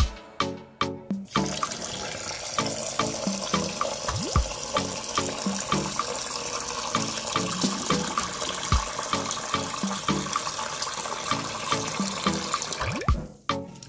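Water running steadily, starting about a second in and stopping shortly before the end, over background music with a steady beat.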